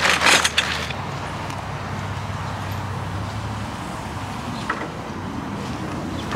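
A black plastic bag rustling and crackling as it is pulled about, ending abruptly about a second in. After that comes a steady outdoor background with a low, even hum.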